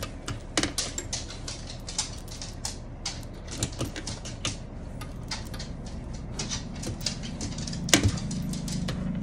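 Quilted cotton fabric and a lace zipper being handled and folded on a sewing machine bed: irregular rustling and light clicks. A sharp click comes just before the end, and a steady low hum starts right after it.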